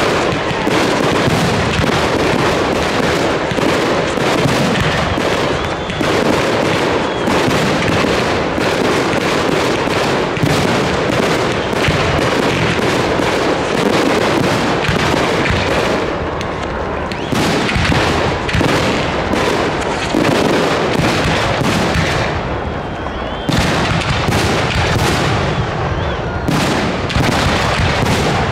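Fireworks display firing a rapid, unbroken barrage of aerial bursts, the bangs and crackles overlapping so densely that they run together, with a couple of brief slight lulls in the second half.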